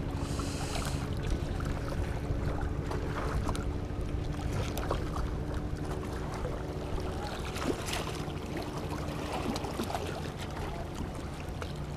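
A boat engine hums steadily, easing somewhat after about five seconds, with small scattered clicks and a brief hiss at the start.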